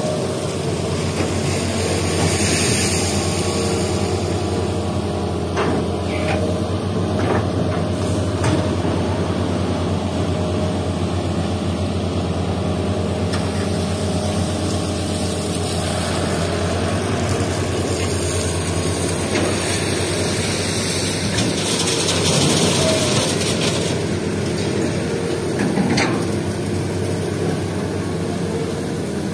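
Diesel engines of a Hitachi hydraulic excavator and a loaded dump truck running steadily, with a few knocks and clanks. A burst of hiss comes near the start and a longer one later.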